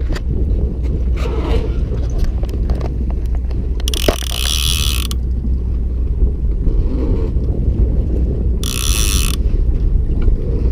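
A conventional big-game fishing reel's clicker ratchets in two loud, high buzzing bursts, one about four seconds in and one near nine seconds in, as a fish pulls line off the spool. A steady low rumble runs underneath.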